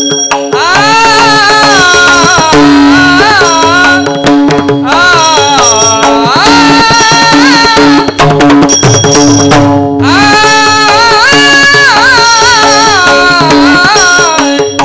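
Marathi devotional abhang singing: a voice holds long, ornamented, wavering notes without clear words, in phrases with short breaks, over a steady harmonium-like drone and regular hand-drum strokes.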